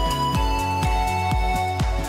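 Background music with a steady beat, about two beats a second, under held synth-like notes.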